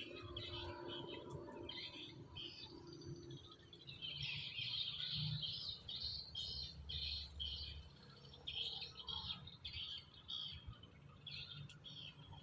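Birds chirping: a run of short, quick, repeated high notes, busiest from about four to six seconds in.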